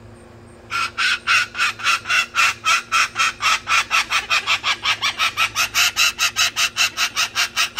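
Umbrella cockatoo calling in a fast, even run of short squawks, about five or six a second, starting about a second in and keeping on without a break.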